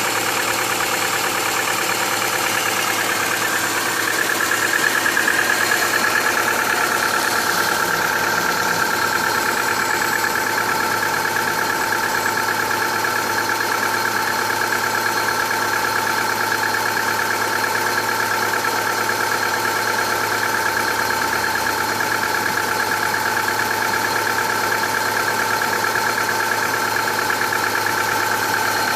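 Subaru Impreza's EJ18 1.8-litre flat-four engine idling with a steady knock from inside the engine, now present even when warm; with 305,000 km on the engine, the owner suspects the fourth cylinder.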